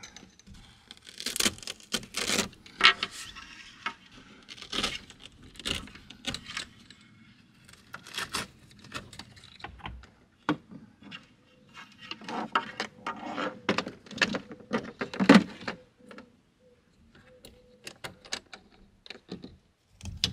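Handling noise of hand work inside a truck camper shell: irregular clicks, knocks and scrapes as small metal brackets, screws and a wooden board are handled against the shell's frame, with one louder knock about fifteen seconds in.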